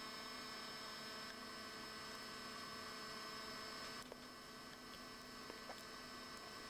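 Faint steady electrical hum made of several fixed tones, with a few faint small ticks about four seconds in and again near the end.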